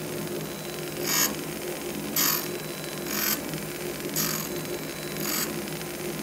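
Surface grinder running, its motor and spindle giving a steady hum. A short grinding hiss comes about once a second as the wheel meets the work on each pass of the table.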